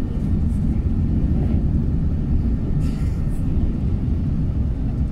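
Steady low rumble inside the cabin of an Airbus A380 with Rolls-Royce Trent 900 engines rolling along the ground after landing: engine and wheel noise.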